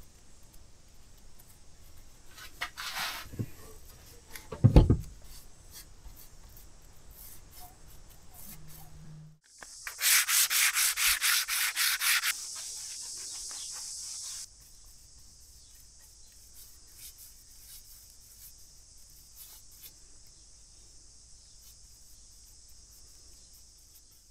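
Hand-sanding the cured epoxy-and-fibreglass sheathing on a wooden oar blade with a sanding sponge: quick back-and-forth scrubbing strokes, about four a second for a couple of seconds, near the middle. Earlier there are light handling noises and one sharp knock.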